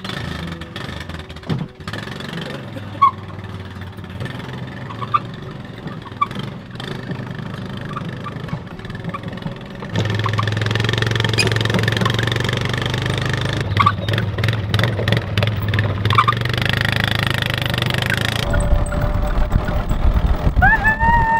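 Engine of a small open vehicle running during a ride, louder from about halfway through, with wind buffeting the microphone late on and a brief rising-then-falling tone near the end.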